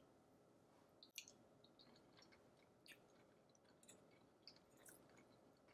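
Near silence, broken by a few faint, scattered clicks of a metal fork against a plate as pasta is speared.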